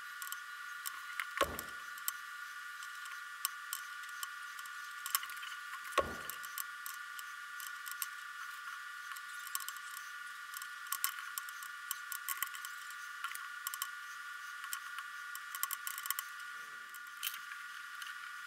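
Small clicks and rustles of hands braiding a thin cord into a three-strand hat band, over a steady high hum. Two low thumps come about one and a half seconds and six seconds in.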